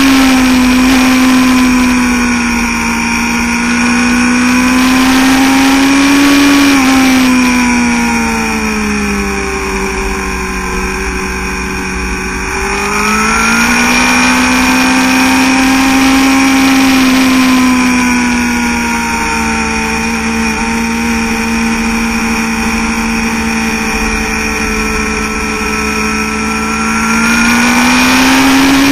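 Sport motorcycle engine at high revs, heard from an on-board camera while lapping a race track. The engine note falls away for about six seconds as the bike slows for a corner, then climbs back as it accelerates out and holds steady, rising again near the end.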